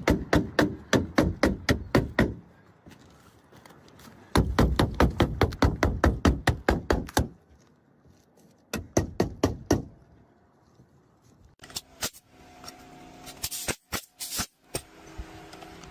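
Pneumatic roofing nail gun firing in rapid runs of shots, about five a second, nailing down asphalt shingles. There are three runs, the longest about three seconds, then a few scattered knocks and a stretch of hiss-like noise near the end.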